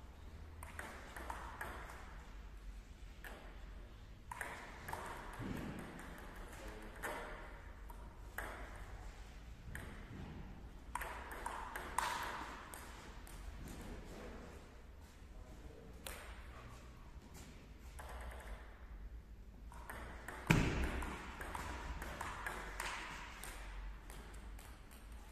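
Table tennis ball clicking back and forth in rallies, struck by paddles and bouncing on the table, with short pauses between points. A louder, sharper knock comes about twenty seconds in.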